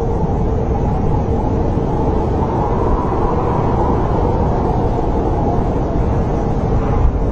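Snowstorm wind blowing in a steady, deep rush, with faint wavering whistles.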